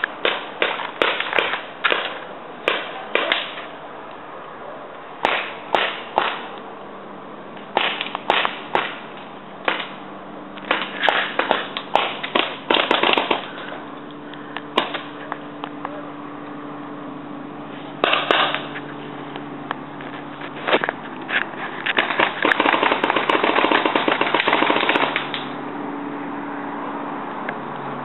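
Paintball markers firing: scattered pops and quick strings of shots, with one long rapid burst about three-quarters of the way through.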